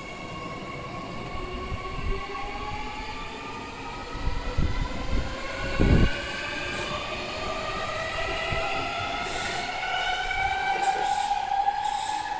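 Adelaide Metro 4000-class electric train pulling away from a station: its traction motors whine in several tones that climb steadily in pitch as it gathers speed. A few low thumps come about halfway through, and light clicks near the end.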